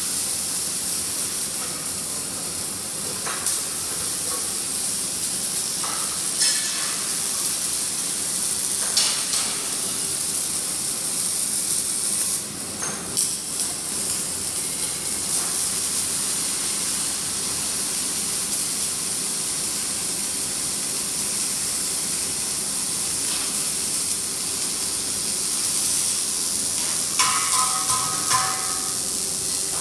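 Arc welding hissing and crackling steadily over a faint steady hum, with a few brief metallic knocks and some short ringing clanks near the end.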